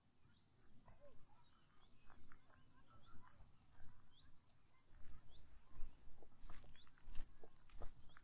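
Birds calling in short chirps over a quiet outdoor background, with footsteps on a path coming in about halfway through as a run of soft crunching steps.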